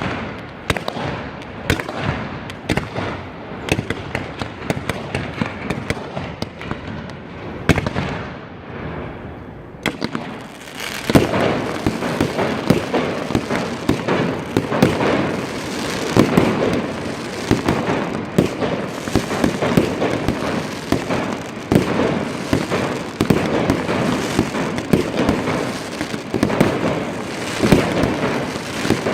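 Fireworks display: a run of sharp bangs and crackles, then, about ten seconds in, a sudden jump to a louder, dense barrage of bangs and crackling that keeps going.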